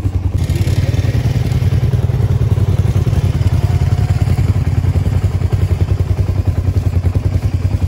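Pickup truck engine running steadily close by, a low even throb.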